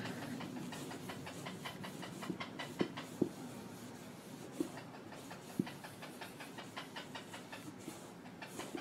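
Foam applicator sponge rubbing Wonder Balsam cream into a smooth-leather Dr. Martens boot: quick rhythmic scrubbing strokes, with a few louder ticks around the middle.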